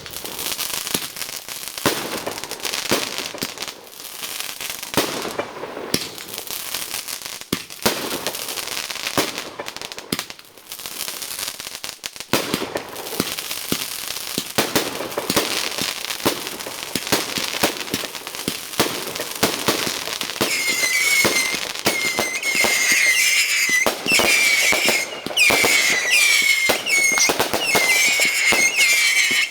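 Fireworks display: dense crackling and popping from many small bursts. About two-thirds of the way in, a run of whistling fireworks starts, many short rising whistles over the crackle, and the whole grows louder.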